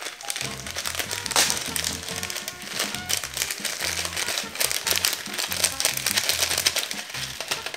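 A plastic bag of small beads crinkling as a hand squeezes and shakes it, emptying the beads into a glass bowl of slime, with a dense crackle throughout. Background music plays underneath.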